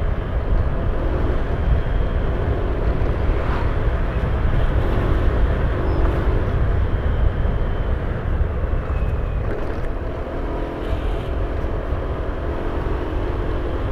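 A vehicle driving along a road: a steady low rumble of engine and road noise, with an engine hum that fades in and out several times.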